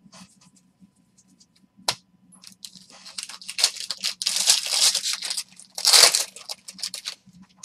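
A trading-card pack's wrapper being torn open and crinkled: a sharp click about two seconds in, then several seconds of crackling tearing, loudest about halfway through and again near the end.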